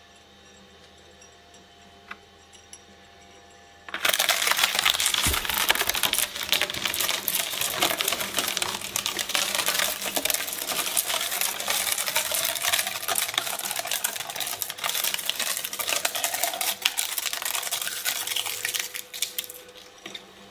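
Shredder chewing through material, a dense, loud crackling and clicking that starts suddenly about four seconds in and stops shortly before the end, after a faint steady hum.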